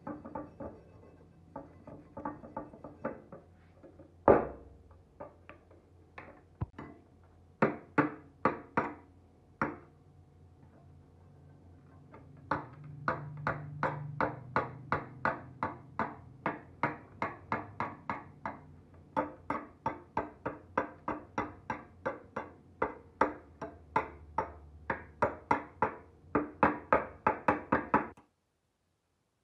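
Wire brush scrubbing rust off a steel knife blank in short, rhythmic strokes, about two to three a second, with one louder knock about four seconds in. The strokes stop abruptly near the end.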